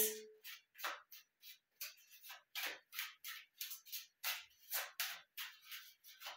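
A Rider tarot deck being shuffled in the hands: quiet, papery riffles and slaps of cards, about three a second.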